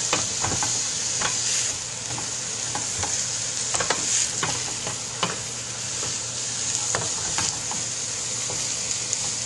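Chopped vegetables and sausage sizzling steadily in a stainless steel sauté pan. A wooden spatula stirs them, scraping and tapping against the pan with irregular clicks.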